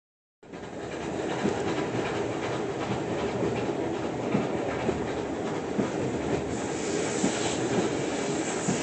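A train running along the track: a steady rumble with the clickety-clack of wheels over rail joints. It builds up over about the first second, then runs on evenly.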